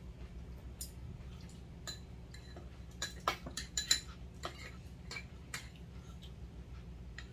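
Spoons and chopsticks clicking against bowls and dishes while eating: scattered sharp clinks, with a quick run of them about three to four seconds in, over a low steady hum.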